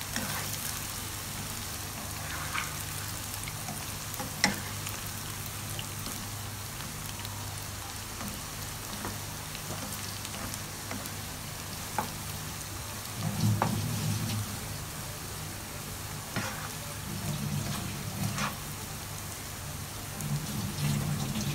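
Diced tempeh frying in hot oil in a wok: a steady sizzle, with a spatula ticking and scraping against the pan now and then as it is stirred.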